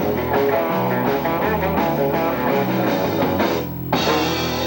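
Live rock-and-roll band playing the instrumental close of a song on electric guitar and drums. There is a short break about three and a half seconds in, then a final chord comes in and rings on.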